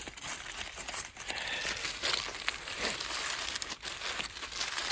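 Aluminum foil crinkling and crumpling as it is folded and wrapped around a food packet, a continuous rustle of small crackles.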